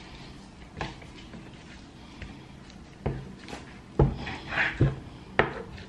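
Kitchen knife cutting raw chicken fillet on a wooden cutting board: a few irregular knocks of the blade against the board, one about a second in and the rest, louder, in the second half.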